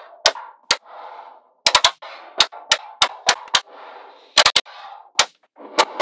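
Small magnetic balls snapping together in sharp clicks, about fifteen in all, irregularly spaced and some in quick runs of two or three, with a softer rustle of the balls being handled between the clicks.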